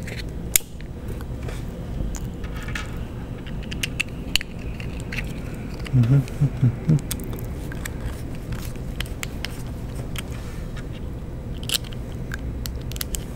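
Small 3D-printed plastic parts, a small cooling fan and tiny screws handled on a wooden tabletop: scattered sharp clicks and taps as the fan is fitted to its printed shroud and screws are picked up. A few short vocal sounds come about six seconds in.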